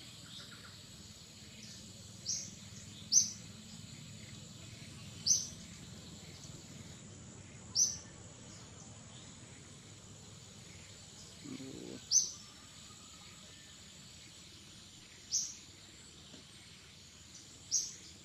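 A bird giving single short, sharp, high chirps, seven in all, spaced two to four seconds apart, over a steady thin high insect whine.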